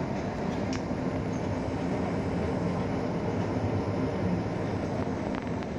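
Five-motor knit-fabric inspection machine running, a steady mechanical rumble and whir from its motors and rollers as fabric is fed through.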